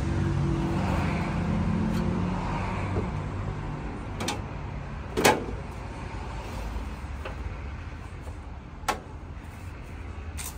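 An engine running with a steady low hum that fades over several seconds, with a few sharp knocks, the loudest about five seconds in.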